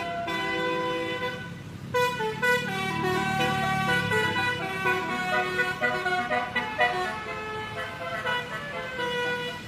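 Multi-tone basuri telolet bus horn playing a quick melody of changing notes, with a bus engine running underneath.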